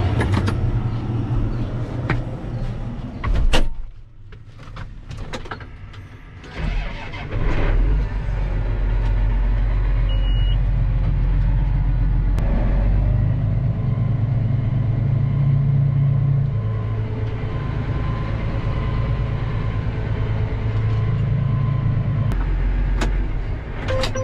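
Large diesel engine running with a deep, steady rumble, with knocks and clatter in the first few seconds. It drops quieter about four seconds in and comes back loud at about seven seconds.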